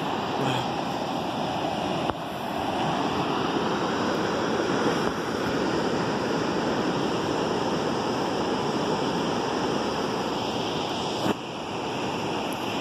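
Ocean surf breaking on a sandy beach: a steady, continuous wash of waves. Two short clicks come with small drops in level, about two seconds in and again near the end.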